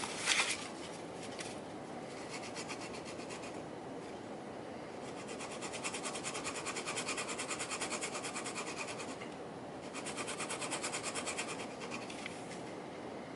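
A small metal periscope part rubbed back and forth on sandpaper in quick, even strokes, giving a steady rasping scratch in two longer spells with a short pause between. A brief, louder rustle of the sandpaper sheet being handled comes right at the start.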